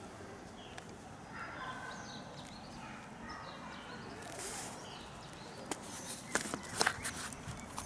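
Open-air background with a few faint bird chirps, then a quick run of sharp clicks and knocks near the end as a sneaker is handled and moved over its cardboard box.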